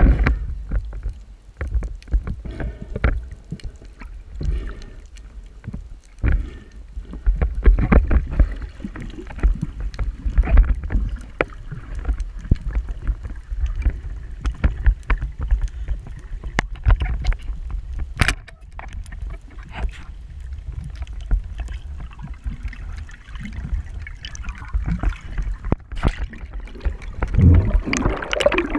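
Water sloshing and gurgling against the microphone, with a low rumble and irregular knocks and clicks; a sharper click about 18 seconds in and a louder surge near the end.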